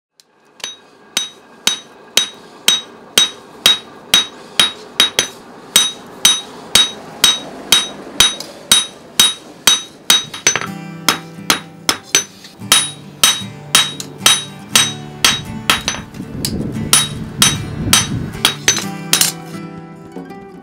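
Hammer strikes on a red-hot Hakata knife blank on an anvil, about two ringing blows a second in a steady forging rhythm. Background music comes in about halfway.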